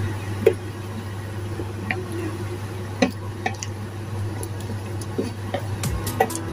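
Sauce-coated spaghetti being stirred and tossed in a frying pan: soft wet squelching, with a handful of sharp clicks as the utensil knocks against the pan, over a steady low hum.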